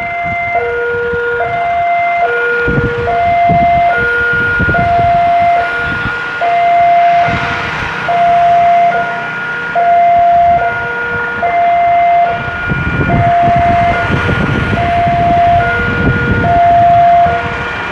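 Railway level-crossing warning alarm, an electronic two-tone signal alternating a higher and a lower tone, a full high-low cycle about every second and a half, sounding because a train is approaching the crossing. A low rumble comes and goes beneath it, stronger in the second half.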